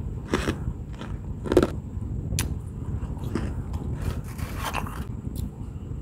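Crisp, squeaky crunching bites into soft freezer frost: about seven short crunches, the loudest about a second and a half in.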